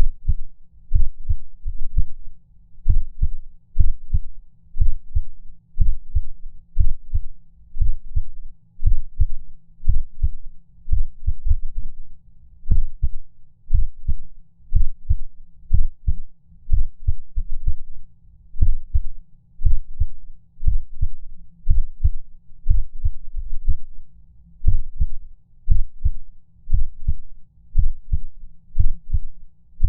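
Heartbeat: low double thumps about once a second, with a few irregular gaps where a beat seems to skip. A few short sharp clicks sound over it.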